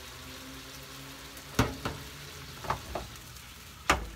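Broccoli frying in a pan on a gas stove, a steady sizzle. From about a second and a half in, the frying pan knocks against the burner grate about five times as it is shaken and tossed, the first and last knocks the loudest.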